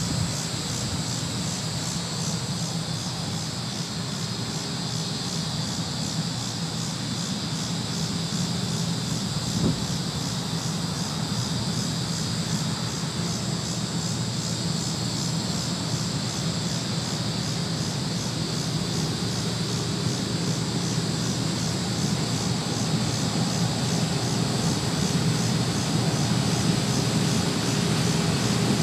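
John Deere combine harvester running steadily while harvesting corn, a continuous low machine drone with a pulsing high whir on top, growing a little louder toward the end.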